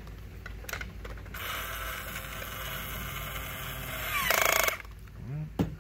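Battery-powered plastic toy power drill from a Kid Nitro build-a-car kit whirring steadily for about three seconds as it drives a screw into the plastic car body. A brief, louder rattle of rapid clicks follows about four seconds in.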